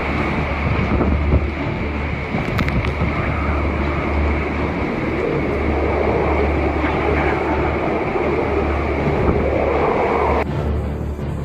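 Loud, steady rushing and rumbling noise with wind buffeting the microphone, changing abruptly to a different noise near the end.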